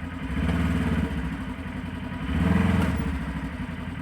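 A vehicle engine running under load while pulling a tree over, swelling louder twice, about half a second in and again about two and a half seconds in, as it is revved against the strain.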